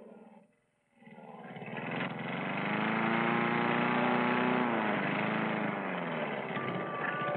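A lawn mower engine starts and runs steadily after a moment of silence, with its pitch dipping and then climbing again about two thirds of the way in.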